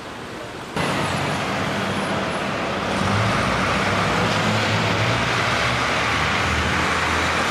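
Street traffic with a city bus engine running, its low drone growing stronger from about three seconds in. The sound jumps suddenly louder about a second in.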